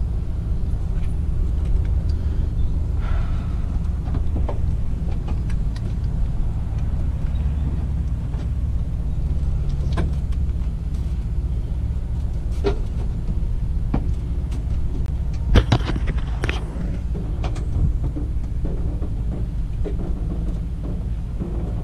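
Steady low rumble of a light aircraft engine idling, with a few sharp clicks and knocks from the tow rope being handled and hooked to the glider's nose release; the loudest knock comes about two-thirds of the way in.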